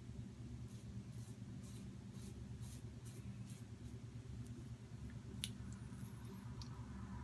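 Faint, short rasping strokes over freshly shaved skin, a few per second and fading after about three seconds, over a steady low hum. A single sharp click about five and a half seconds in.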